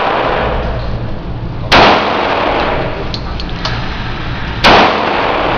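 Two shots from a .45 ACP M1911 pistol, about three seconds apart. Each is a sharp crack followed by a long echo off the walls of an indoor range.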